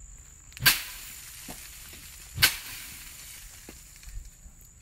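Two sharp whacks about two seconds apart, each with a brief hissing tail, as a wooden-handled tool is brought down to smash a praying mantis, with a few lighter taps between. Crickets chirp steadily in the background.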